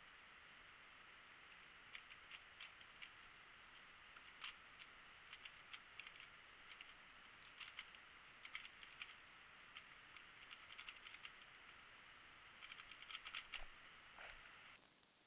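Faint clicking and clattering of a 3x3 speedcube's layers being turned quickly with one hand, in irregular flurries over a steady hiss; the clicks stop about a second and a half before the end.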